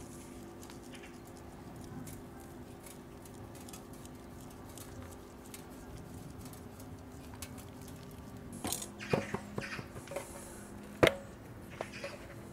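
Faint pattering of dry BBQ rub sprinkled from an open jar onto raw pork ribs in a stainless steel pan, over a steady low hum. Near the end come a few light knocks and one sharp click as the jar is handled and set down.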